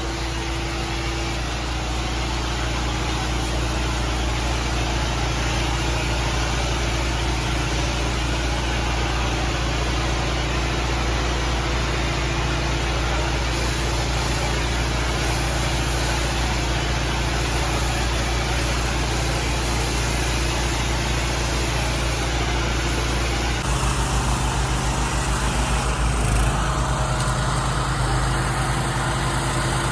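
Pressure washer engine running steadily under a constant hiss, its low note shifting about two-thirds of the way through.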